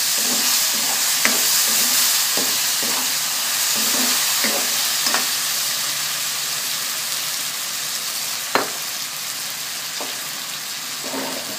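Tomatoes, onions and chili sizzling in a hot metal wok while a spatula stirs them, scraping and tapping against the pan. One sharper knock comes about three-quarters of the way through.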